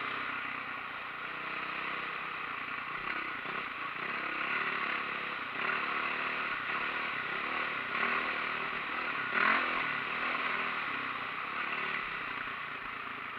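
Dirt bike engine running while riding, its pitch rising and falling with the throttle. A brief louder burst comes about nine and a half seconds in.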